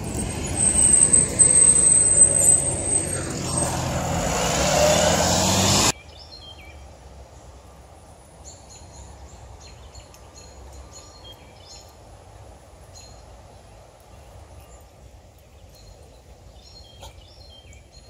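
A motor vehicle running close by is loud, with its engine note gliding in pitch, until it cuts off suddenly about six seconds in. After that there is quiet outdoor ambience with scattered high bird chirps.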